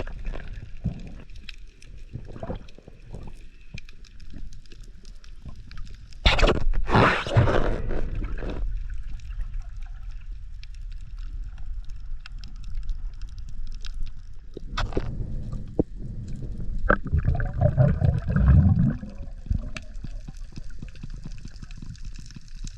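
Water sloshing and gurgling around a diver's head-mounted camera, with loud rushing splashes about six seconds in and again in the second half.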